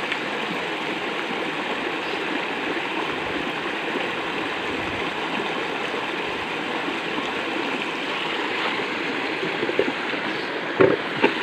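Steady rush of water flowing down a concrete drain channel and churning white over debris. Two short, sharp knocks near the end.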